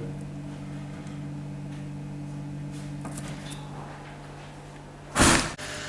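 Steady low electrical hum from a running machine. About five seconds in comes one loud, brief rustle or scrape that lasts about half a second.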